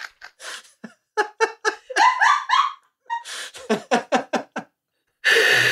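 People laughing hard in runs of short, breathy pulses, with a voiced stretch of laughter about two seconds in and a loud breath near the end.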